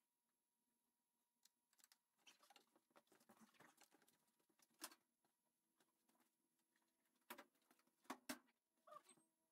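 Faint scattered clicks, taps and knocks as a car's cowl panel with its wiper linkage is handled and laid on cardboard, with the sharpest knocks about five seconds in and again between seven and eight and a half seconds.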